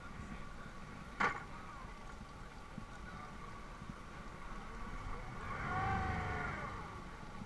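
Boat's outboard engine idling steadily with a faint steady whine. There is one sharp click about a second in. Near the end comes a drawn-out voice that rises and then falls in pitch.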